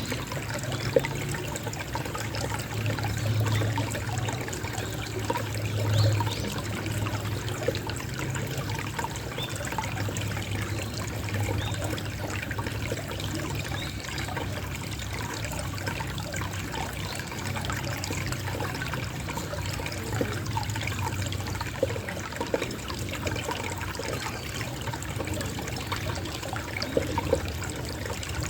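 Water trickling gently, a small steady flow with fine splashing ticks, over a low steady rumble.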